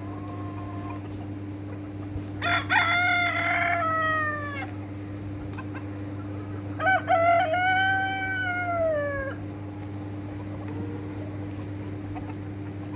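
Rooster crowing twice, two long calls a few seconds apart, each dropping in pitch at the end. A steady low hum runs underneath.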